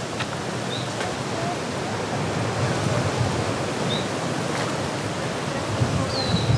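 Steady rushing of moving water, with a low rumble of wind on the microphone and a few short high chirps.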